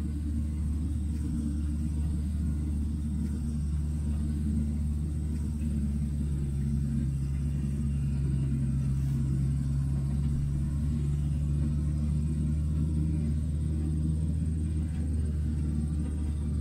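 Diesel engine of a John Deere tracked knuckleboom log loader running steadily with a low rumble while its hydraulic boom swings and the grapple lifts a log.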